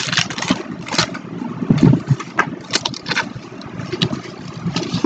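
Sheet of paper and washi tape handled close to the microphone: irregular rustling and crinkling as the tape is peeled and pressed onto the paper.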